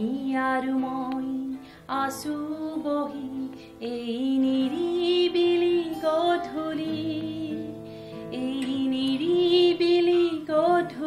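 A woman singing a song in long held notes with a wavering pitch, accompanied by a strummed acoustic guitar.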